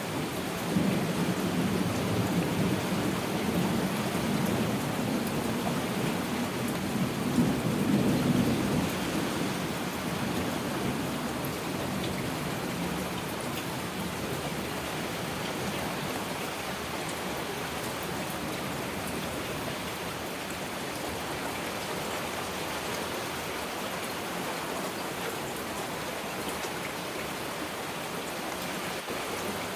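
Steady heavy rain with a long roll of thunder. The thunder swells about a second in and again around eight seconds, then dies away, leaving only the rain.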